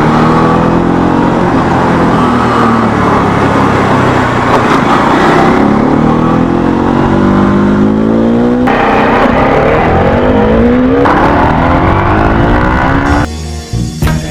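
Bajaj Dominar 400's single-cylinder engine through a Leo Vince aftermarket exhaust, accelerating hard under riding: the note climbs in pitch and drops sharply at each upshift, and falls away near the end.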